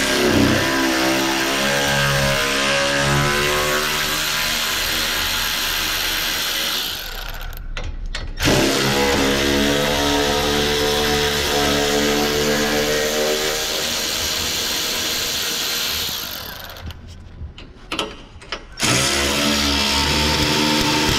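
Milwaukee cordless electric ratchet running in three long stretches with short pauses between, spinning out 8 mm bolts.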